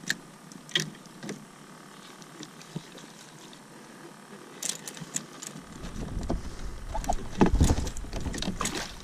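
Fishing gear being handled on a plastic kayak: scattered clicks and knocks of rod and landing-net handle against the hull. A low rumble comes in about halfway through, and the loudest knocks cluster near the end.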